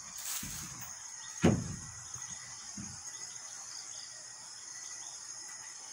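Night insects trilling steadily and high-pitched, with one sharp knock about a second and a half in and a few soft bumps after it.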